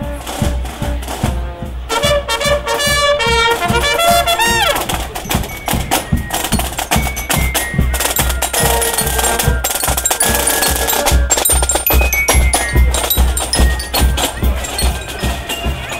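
Marching band of brass and drums playing as it passes, over a steady bass-drum beat. Brass notes stand out in the first few seconds; after that the drums carry most of the sound.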